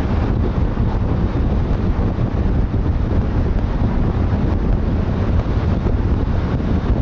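Steady low wind rumble on the microphone over the road and tyre noise of a moving car in a road tunnel.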